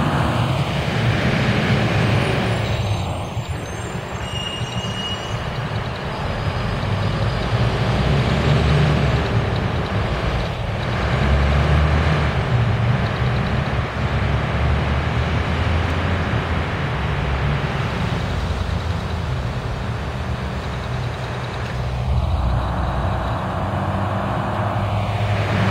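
NJ Transit city buses driving past and pulling away, their diesel engines running under steady road and traffic noise. A vehicle swells up and passes about 22 seconds in.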